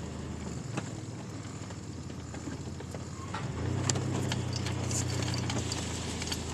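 2002 Chevy Blazer's 4.3-litre V6 engine running while driving off-road, with scattered knocks and rattles from the truck over rough ground. The engine note grows louder for about two seconds past the middle, then settles back.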